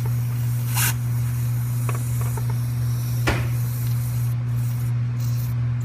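Compressed air hissing steadily from a shop-air test fitting coupled to the IPR valve port of a diesel's high-pressure oil system, with two short, sharper spurts at about one second and three seconds in; the air is leaking at the fitting, which has not yet sealed. A steady low hum runs underneath.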